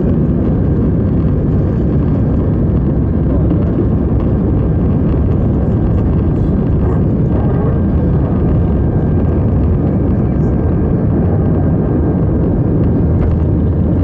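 Airbus A319's CFM56 turbofan engines at takeoff thrust, heard inside the cabin over the wing as the jet lifts off and climbs: a loud, steady low rumble with a faint high whine.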